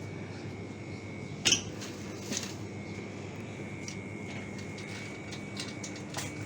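Grocery store background: a steady low hum with a thin high whine, and a few short clinks and clatters of goods being handled. The loudest clink comes about a second and a half in.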